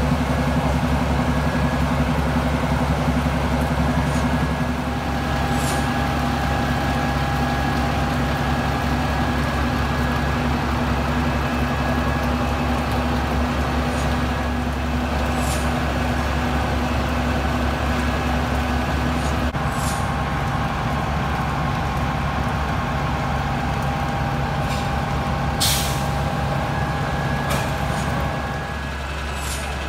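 Fire engine's diesel engine running steadily, a low even drone. Near the end there is a brief hiss.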